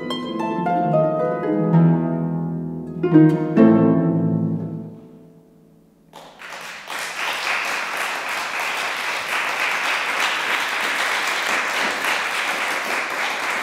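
Concert pedal harp playing the final phrase of a piece, ending on strong chords about two and three and a half seconds in that ring and fade out. About six seconds in, audience applause starts and runs steadily on.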